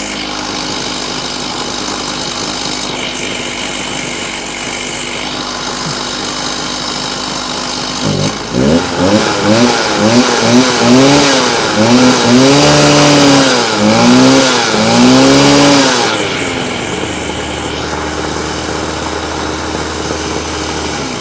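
Stihl TS350 Super cut-off saw's freshly rebuilt two-stroke engine running on its first start. It idles steadily, is revved up and down repeatedly for about eight seconds, settles back to idle, then stops right at the end. It runs a bit boggy in places, a sign it still needs carburettor tuning.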